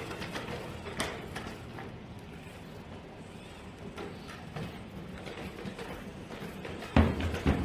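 Light mechanical clicking and rattling, then a sudden loud thump near the end.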